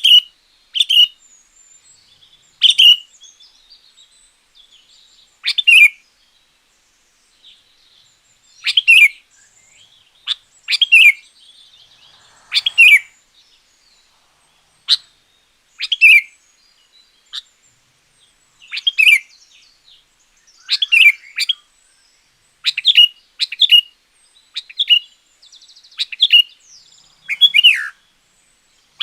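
Sooty-headed bulbul (kutilang) singing: short, loud phrases that often fall in pitch, repeated every second or two with brief gaps between them.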